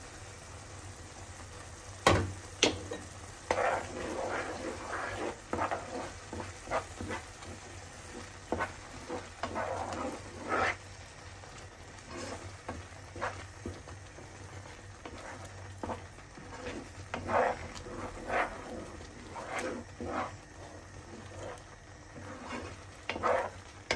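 Wooden spoon stirring a thick tomato-and-pepper sauce in a frying pan: irregular scrapes and soft knocks against the pan in bunches, the loudest about two seconds in, over the faint sizzle of the sauce frying.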